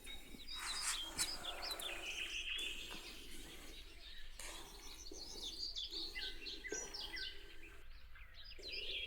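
Several small birds chirping and twittering, many short high notes overlapping, over a faint outdoor background hum.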